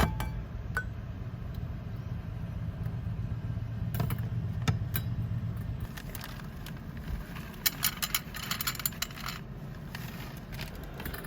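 A low steady hum with a few sharp knocks, then, past the middle, about two seconds of quick light clinking and rattling of small hard objects.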